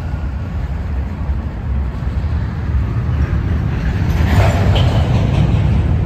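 Freight train's covered hopper cars rolling over a steel girder bridge: a steady low rumble of wheels on rail. A louder rush of higher noise swells about four seconds in and eases after a second or so.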